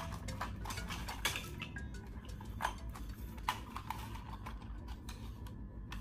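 Light plastic clicks and clatter from a Schaeff HR16 toy excavator being turned and handled, its cab swivelling on the tracked base and its arm moved.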